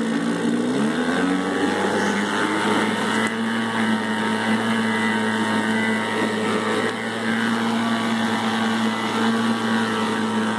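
1971 Johnson 4 hp twin-cylinder two-stroke outboard opened up from idle. Its pitch rises over the first second or so, then it runs steadily at high throttle while the direct-drive propeller churns the water in a test barrel.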